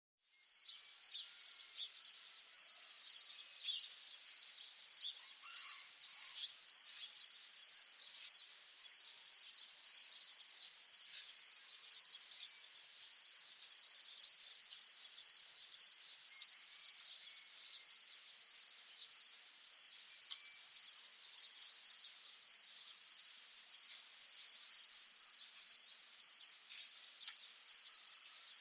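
A cricket chirping steadily, one short high-pitched chirp a little under twice a second, evenly spaced, with faint other calls in the background.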